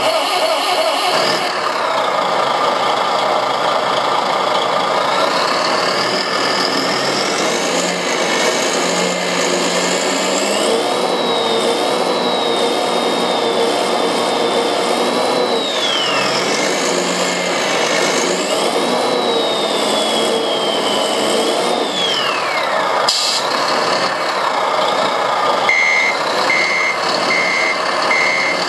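Synthesized truck engine sound (engine sound no. 5) from a Servonaut SM7 RC sound module, played through a loudspeaker: it starts abruptly and runs, twice rising and falling in pitch with a whistle that follows the revs. A short hiss comes about two-thirds of the way through. Near the end a reversing beeper starts, a little more than one beep a second.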